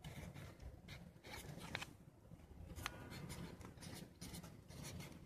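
Faint scratching of a pen writing on paper on a clipboard, in short irregular strokes.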